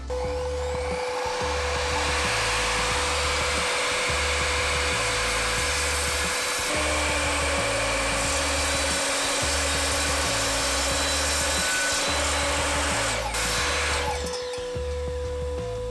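Evolution miter saw running and crosscutting an oak board, a steady motor whine over the cutting noise that drops in pitch about halfway through, then the blade winds down near the end. Background music with a steady beat plays underneath.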